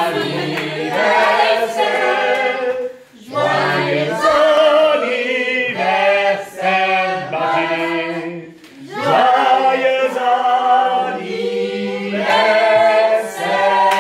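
A group of voices singing together a cappella, in long phrases with short breaks about three seconds and about eight and a half seconds in.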